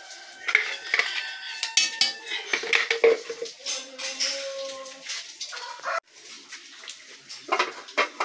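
Metal cookware clattering on the iron top of a wood-burning stove: a cast-iron pan and its lid knocked and set in place, in a run of irregular clinks and knocks.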